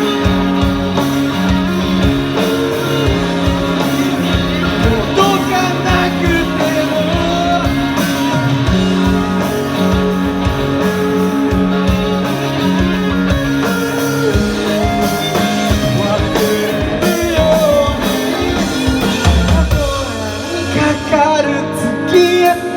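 Rock band music: guitars, bass and drums, with a melody line winding over them. The bass and drums drop away near the end.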